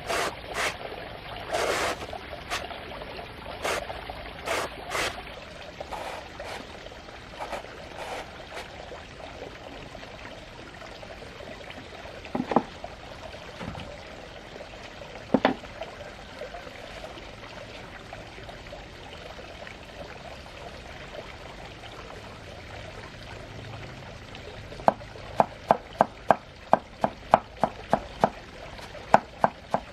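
Water trickling and pouring, with scattered knocks early on and two single knocks mid-way. Near the end comes a run of sharp, regular knocks about two a second, like chopping on a board.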